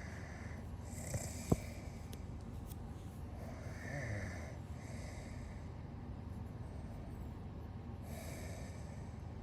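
A person snoring softly and rhythmically, in slow swells a few seconds apart, with a sharp click of metal tweezers about a second and a half in.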